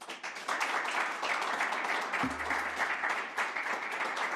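Audience applauding: many hands clapping, beginning suddenly and filling out within the first half second, then continuing steadily.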